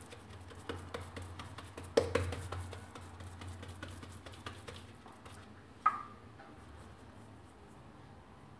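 Fingertips pressing and pinching semolina harcha dough into a heavy pan, a run of soft taps and clicks. A sharper knock comes about two seconds in and another near six seconds.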